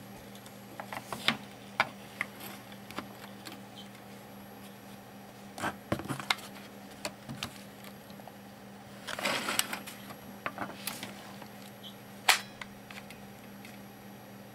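Scattered clicks, taps and a brief rustle of hands handling a perforated metal bay cover, a small LCD thermometer and a hot glue gun on a workbench, over a faint steady hum. The sharpest click comes about twelve seconds in.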